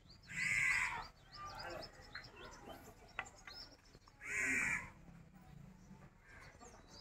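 A crow cawing twice, each call under a second long and about four seconds apart, with small birds chirping faintly between the calls.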